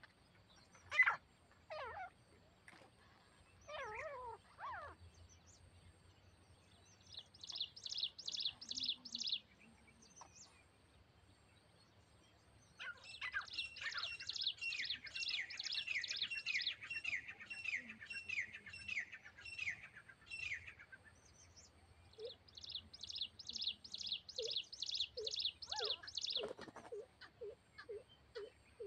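Grey francolins (titar) calling in runs of rapid, evenly repeated shrill notes, each run lasting a few seconds. In the first few seconds there are some separate falling calls, and near the end a lower note repeats about twice a second.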